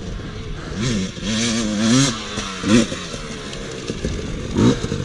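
Dirt bike engine revving in several quick surges, the pitch climbing and dropping as the throttle opens and closes.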